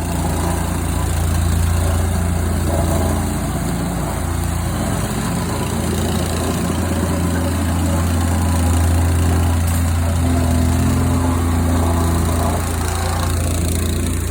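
Vibratory plate compactor running steadily, its small engine droning over a strong low vibrating hum as it compacts the pea-gravel base.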